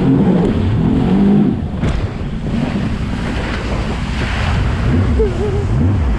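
Jet ski with a freshly rebuilt GTX engine running on the water, with wind buffeting the microphone and water splashing.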